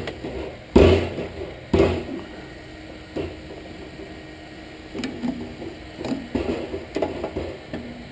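Two heavy metal blows about a second apart, then a run of lighter clanks and knocks, as parts of a gas water heater are struck and worked loose with hand tools.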